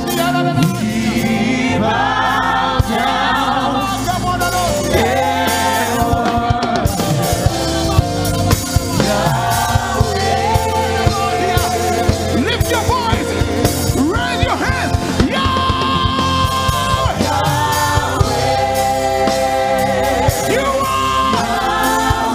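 Live gospel worship music: a male lead singer and backing vocalists singing long held notes over a band with keyboard.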